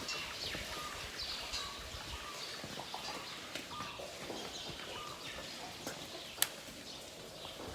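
Small birds chirping, many short calls scattered throughout, with one sharp click about six and a half seconds in.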